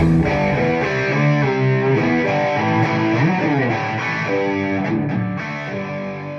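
Electric guitar with distortion playing a phrase of held notes, with a sliding bend partway through, fading out near the end.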